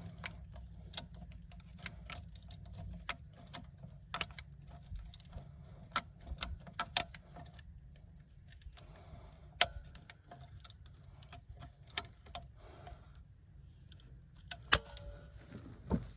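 PVC pipe fittings being handled and dry fitted together: irregular sharp clicks and light plastic knocks, a few louder ones, over a faint low hum.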